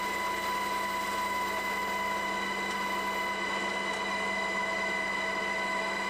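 Steady engine drone with a constant whine and hum that does not change.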